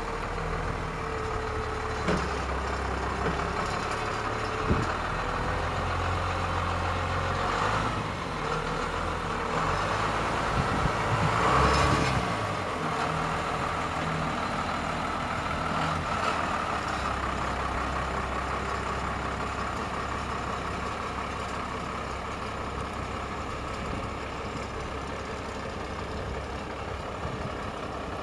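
1995 Ford school bus engine idling steadily, with two sharp knocks in the first five seconds and a brief louder rush about twelve seconds in.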